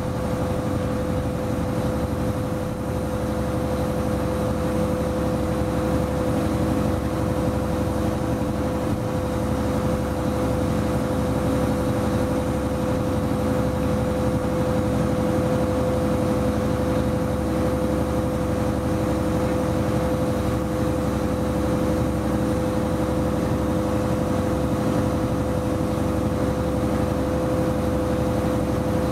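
Class 122 'Bubble car' diesel railcar running along the line under steady power: an even engine drone with one clear, held note over it and no change in speed.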